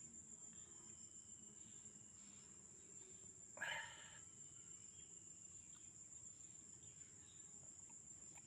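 Faint, steady high-pitched insect drone, cricket-like, against quiet outdoor background. A brief louder sound comes about three and a half seconds in.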